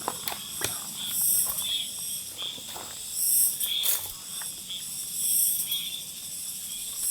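Outdoor insect chorus, a high-pitched buzzing that swells and fades about every two seconds, with a few light clicks and knocks.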